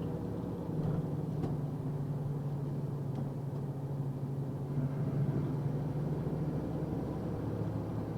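Box truck's engine and road noise heard inside the cab while driving: a steady low hum.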